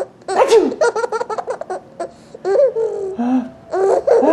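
A sneeze, "achoo!", about half a second in, followed by a baby laughing in several fits of quick, chopped laughter, the baby's laughter being set off by the sneeze.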